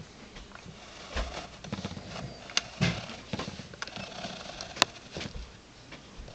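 Irregular clicks and knocks from a small homemade steering mechanism of aluminium brackets, bevel gears and a sliding shaft as it is worked, with a sharp click about two and a half seconds in and another near five seconds.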